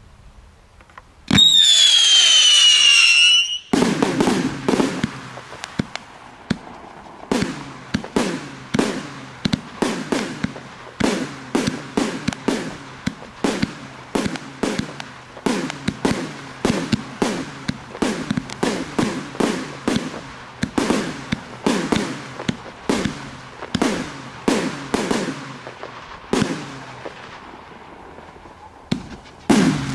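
TB201 288-shot professional firework cake firing. It opens with a loud whistle falling in pitch for about two seconds, then shots go off at a steady pace of about two a second, each a sharp bang, until a pause near the end broken by one more shot.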